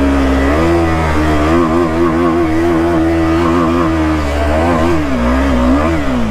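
Motorcycle engine held at high revs under throttle. Its pitch rises at the start, wavers up and down, then drops away about six seconds in.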